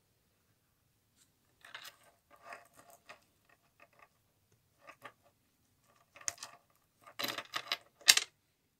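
Silver Pandora charm bracelet's metal charms clinking and clicking against each other and the bracelet as they are handled, in short irregular bursts, loudest near the end.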